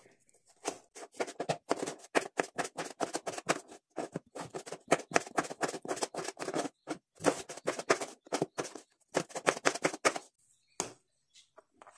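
Kitchen knife chopping raw peeled potatoes into chunks on a plastic cutting board: quick, even chops a few a second, with two short pauses. The chopping stops about ten seconds in, followed by a couple of single knocks.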